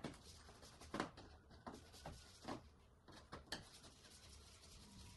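Faint, scattered clicks and scrapes of a hand screwdriver working screws out of a car's front number plate, about five short strokes with quiet between them.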